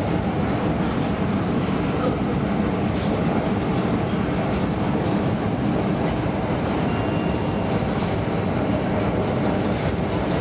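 Steady rumbling noise, even in level and without distinct knocks or clicks, heard from inside a glass traction elevator car as it travels through its shaft in an underground metro station.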